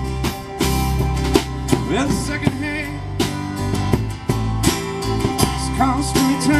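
Live country-style band playing: acoustic guitar strumming with a resonator guitar, upright bass and a drum kit keeping a steady beat, and a wavering lead line over the top.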